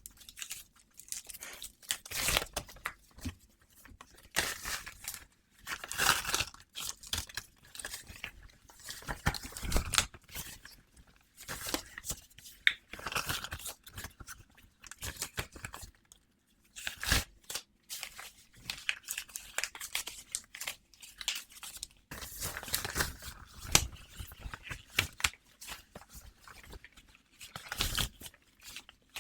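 Close-miked ASMR trigger sounds: irregular tearing and crinkling rasps broken by sharp clicks, coming in uneven bursts with short pauses between them.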